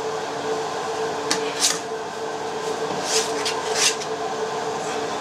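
Minced meat being scooped with a spoon from a steel tray and pushed into a stainless-steel mixer bowl: a few brief soft scraping, squishing noises over a steady background hum.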